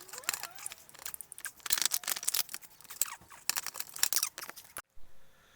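Workshop clatter of hand tools and metal parts being handled during a motorcycle engine removal and refit: rapid irregular clicks, clinks and scrapes with a few brief squeaks, cutting off abruptly about five seconds in.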